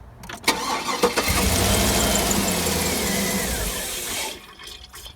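2009 Cadillac Escalade's 6.2-litre V8, running with its valve cover off, cranked by the starter, catching and running for about three seconds, then shut off abruptly. This is the engine whose lifter tick is being chased.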